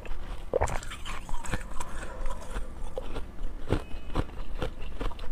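Close-miked chewing of frozen slush ice: irregular wet crunches and crackles, several a second.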